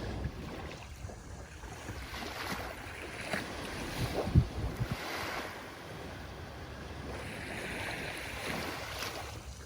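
Ocean waves washing onto the shore, the surf swelling and easing every few seconds, with a few low thumps of wind on the microphone about four seconds in.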